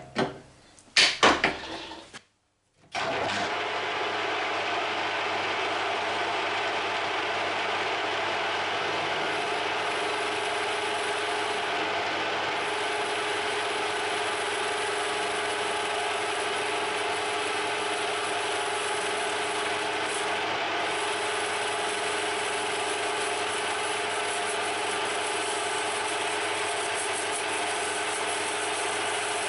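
A few short loud clunks, then after a brief gap a Harrison M300 metal lathe runs steadily, its tool cutting a spinning brass workpiece: an even machine hum with a few constant tones.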